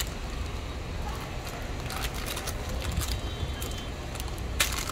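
A plastic biscuit packet rustling and crinkling as it is handled, with a few short sharp crinkles about two seconds in and near the end, over a steady low rumble.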